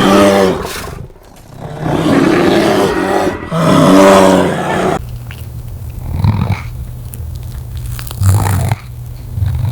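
A farm animal calling: two drawn-out, low-pitched calls, one at the start and one about four seconds in, then a steady low hum for the rest.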